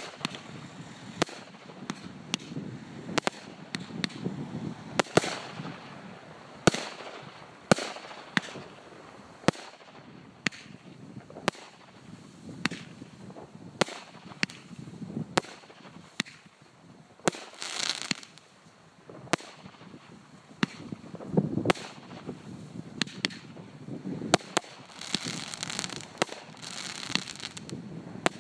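Flaming Phoenix firework from Cosmic Fireworks' NG range going off shot after shot: a sharp bang about once a second, with hissing and crackling from the bursts between them. A longer hissing stretch comes near the end.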